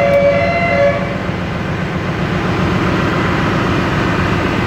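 Loud, steady machinery noise from a Tanabe main air compressor running amid engine-room machinery. A steady horn-like tone sounds for about the first second, then stops.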